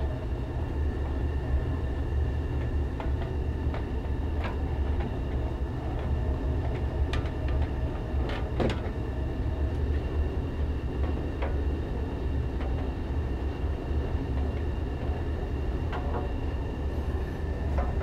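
Gas furnace with its blower fan running, a steady low rumble. A faint steady high tone and a few scattered faint clicks and taps sound over it.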